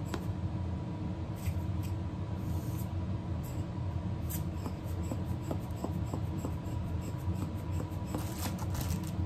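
A few short hissing puffs of air from a rubber bulb lens blower being squeezed, the last ones coming in a quick cluster near the end, over a steady low room hum with faint small clicks from handling.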